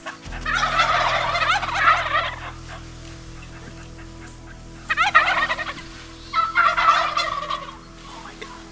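Wild turkeys gobbling: three loud, rattling gobbles, the first about two seconds long starting just after the beginning, a short one about five seconds in and another soon after.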